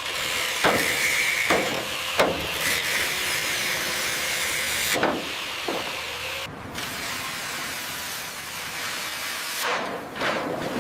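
A steady hiss with sharp knocks, three in the first couple of seconds and two more about halfway through. The high hiss drops out briefly after the knocks.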